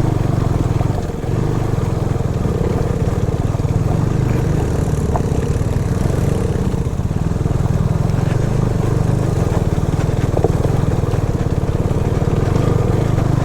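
Motorcycle engine running steadily under way, a continuous low rumble with a brief dip about a second in.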